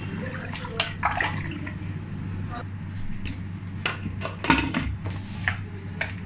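A wooden spoon stirring a watery stew in an aluminium pressure cooker, knocking and scraping against the pot, then the cooker's metal lid being set on. There is a steady low hum underneath.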